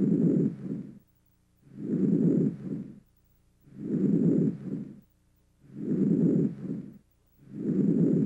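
Normal vesicular breath sounds over the lung fields: soft, low-pitched breathing noise, about four breaths one every two seconds. Each breath is heard through the whole inspiration, then fades away early in expiration, with a quiet pause before the next.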